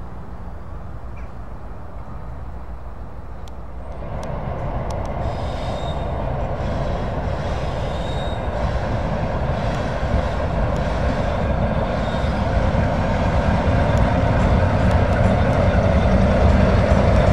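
Two diesel locomotives, led by Class 47 47727, running over a railway bridge: a steady engine hum with wheel and rail noise. It grows louder from about four seconds in as the locomotives draw near, with a faint tick every couple of seconds.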